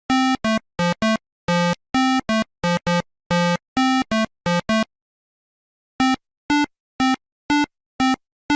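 Synthesizer jingle of short, separate notes. A quick melody with low notes runs to about five seconds in, breaks off for about a second, then goes on as evenly spaced single notes about two a second.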